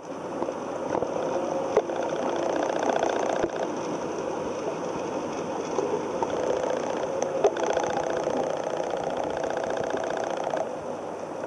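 Steady mechanical hum and water noise picked up underwater in a koi pond, with a few sharp clicks at about two, three and a half and seven and a half seconds in.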